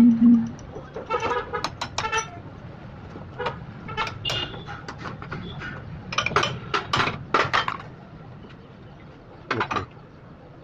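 Metal tools clinking and knocking on metal parts in irregular clusters, some strikes with a short ring, over a steady low hum, as in work on a tractor's oil-immersed brakes.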